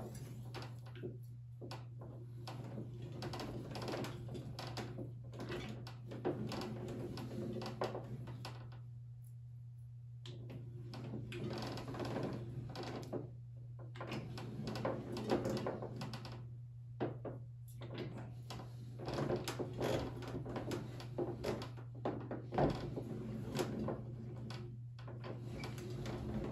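Hand-cranked benchtop slip roller turning, its gear set and rollers clicking and clunking as a sheet-metal piece is fed through and curved, with the cranking stopping briefly a few times.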